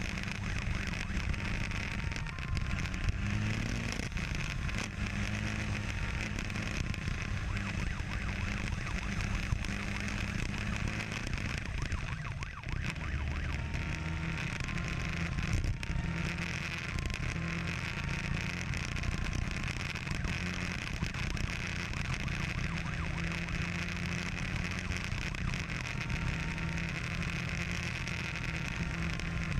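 Motorcycle engines running at speed, revs rising and falling, over steady wind and road noise.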